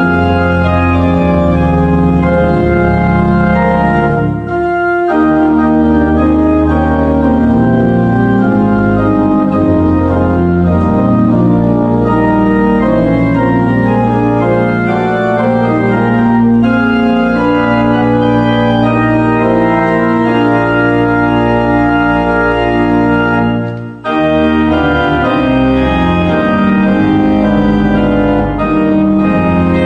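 Organ music: full sustained chords over a low bass line, with short breaks between phrases about four and a half seconds in and again about 24 seconds in.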